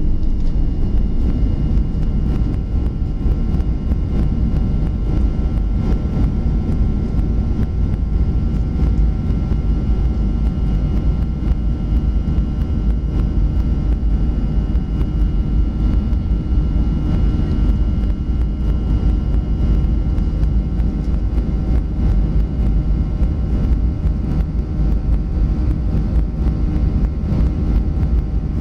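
Cabin noise of a Boeing 737-400 climbing just after take-off, its CFM56-3 turbofans at climb power: a steady, loud, low rumble with faint steady whining tones above it, heard from inside the cabin.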